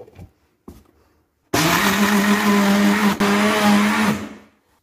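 Electric jug blender switched on, running steadily for about three seconds as it blends ice cubes with milk, yogurt and cream into a smoothie, then switched off and spinning down. A couple of light clicks come before it starts.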